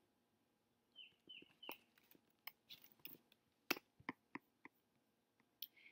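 Near silence with faint, irregular clicks from a computer keyboard and mouse, a dozen or so taps in the middle of the stretch, and a few small high chirps about a second in.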